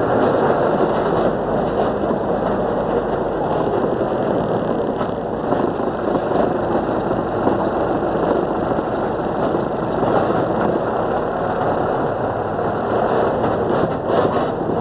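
City bus driving, its engine running and tyres rolling on asphalt, heard from on board as a steady noise.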